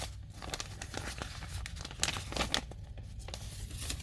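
Paper rustling and crinkling as a folded instruction manual is handled and its pages turned, with a few sharper crackles about two seconds in.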